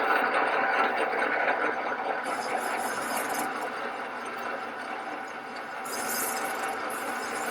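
Small machine tool running and cutting a metal part, a steady dense mechanical whine with a brighter hiss twice, about two and six seconds in.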